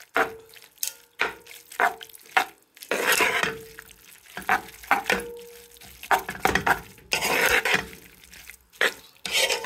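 A metal spoon stirring and tossing rice noodles with prawns and vegetables in a pot, knocking and scraping against the pot with irregular clacks about one or two a second, some followed by a short ringing of the pot, over the sizzle of the food frying.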